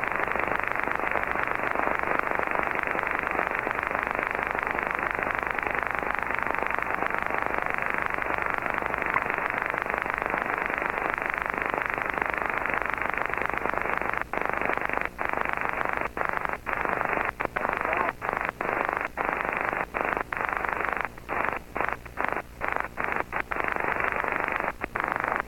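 Steady rushing static from an amateur radio receiver, the 'horrible noise' of interference on the band. About halfway through it starts cutting out in short gaps that come more and more often toward the end.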